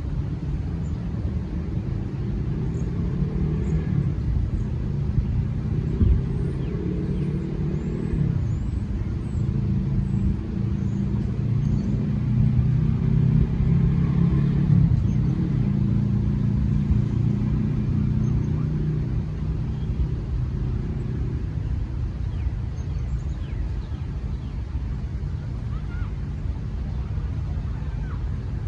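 Road traffic: a motor vehicle engine running past, its low hum growing loudest about halfway through, over a steady low rumble. Faint high bird chirps come through in the first half.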